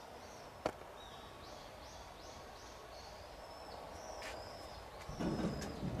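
Birds calling over a steady outdoor hiss: a run of five or six quick repeated high chirps, then longer high whistles. A sharp click comes under a second in, and a louder low rustling starts near the end.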